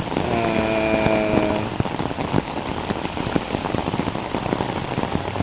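Steady rain with many drops tapping close by. About a third of a second in, a short steady pitched tone sounds over it for about a second.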